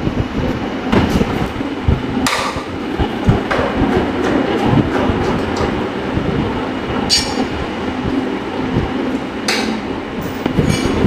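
Carrier window air conditioner running with a loud, rough rattling and knocking, with a few sharper metallic clinks: the abnormal high noise from a faulty fan motor.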